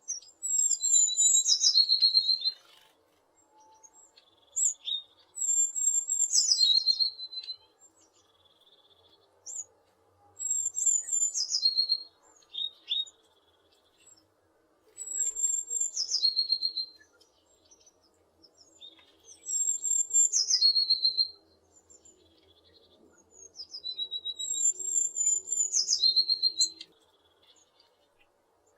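A tit singing: phrases of quick, very high notes that drop to a lower trill, each lasting one to two and a half seconds, repeated every four to five seconds.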